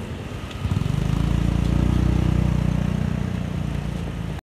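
Small motorbike engine running close by, swelling about a second in and then fading, over steady street traffic noise; the sound cuts off abruptly near the end.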